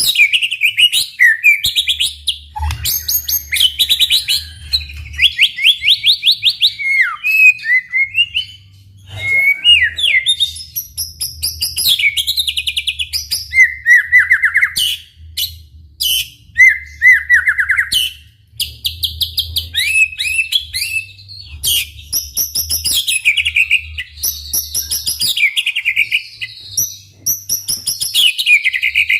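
White-rumped shama singing nonstop in loud, varied phrases: rapid trills, falling whistled sweeps and sharp clicking notes, with only short breaks. This is the bird's full, energetic song.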